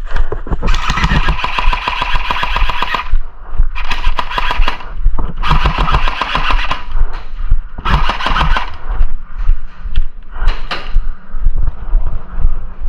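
Airsoft guns firing rapid full-auto bursts, several in a row, the longest about two seconds.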